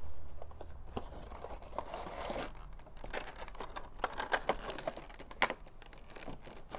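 A Funko Pop box being opened and the vinyl figure taken out of its packaging: crinkling and rustling with scattered small clicks.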